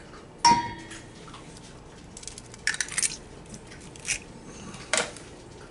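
An egg tapped on the rim of a stainless steel mixing bowl: a sharp crack with a short metallic ring about half a second in. A few softer clicks and taps follow as the shell is pulled open over the bowl.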